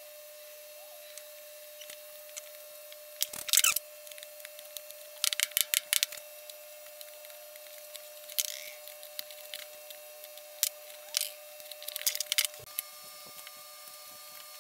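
Carving knife and chisel cutting into Kauri pine by hand: short, crisp slicing and paring strokes in small groups every couple of seconds, over a faint steady hum.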